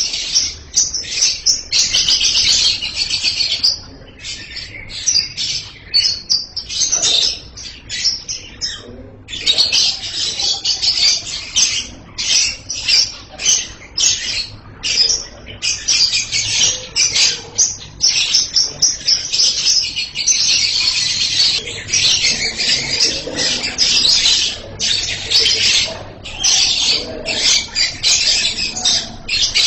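Lovebird singing a long, shrill run of rapid chirps, nearly unbroken, with brief lulls about four and eight seconds in.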